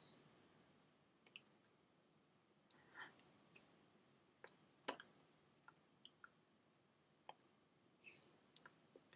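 Near silence with faint, scattered clicks and taps, about a dozen at uneven intervals, from a person signing: hands, rings and mouth moving.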